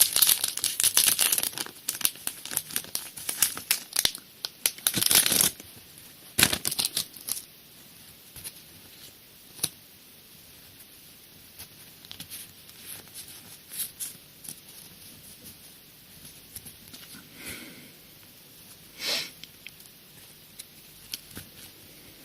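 Foil Pokémon booster pack being torn open and crinkled for the first five seconds or so, then quieter scattered rustles and clicks as the cards are handled.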